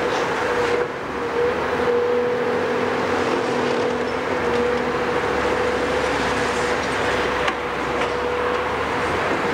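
Caterpillar 374 hydraulic excavator running steadily under load as its demolition crusher works in concrete rubble: engine and hydraulics with a constant high tone over a rumbling noise. A single sharp knock about seven and a half seconds in.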